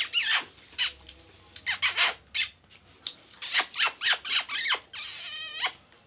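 Rose-ringed parakeet giving a quick series of short, shrill squawks, several sliding down in pitch, then a longer harsh, wavering screech about five seconds in.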